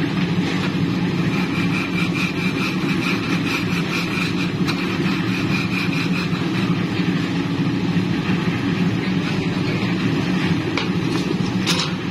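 An engine running steadily at constant speed, with a faint high whine over it for about five seconds in the first half and a few light knocks near the end.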